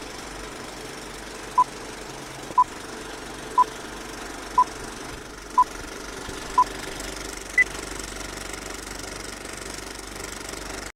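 Seven short electronic beeps, one per second, over a steady low hum: six at the same pitch, then a seventh an octave higher, like a countdown.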